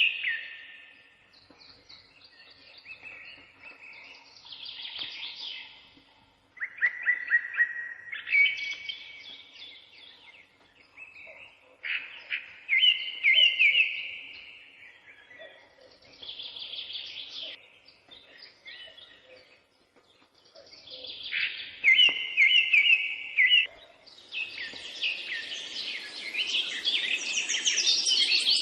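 Songbirds singing in phrases of quick trills and chirps a few seconds apart, with short pauses between. Near the end the song becomes dense and continuous.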